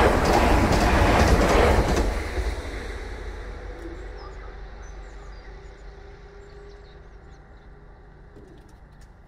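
Passenger train passing at speed over a level crossing: a loud rush of wheels on rail for about two seconds, then fading steadily into the distance. From about four seconds in, a faint steady hum as the crossing barriers rise, stopping shortly before the end, with a few bird chirps.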